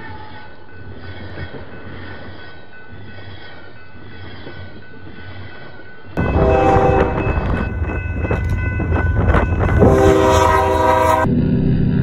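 Steady rumbling noise, then about six seconds in a Canadian Pacific diesel freight locomotive's horn starts blowing loudly as the train reaches a grade crossing. Two strong horn blasts come over the rumble of the train and a clatter of thrown snow.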